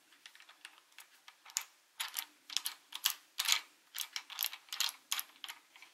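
Small camera ball head being screwed by hand onto its threaded mount: a run of light, irregular clicks and scrapes, a few a second.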